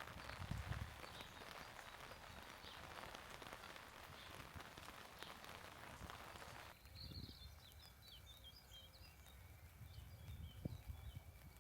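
Light rain falling steadily with scattered drop ticks, cut off abruptly about seven seconds in. After that, faint birdsong chirps, a thin steady tone and a few low thuds.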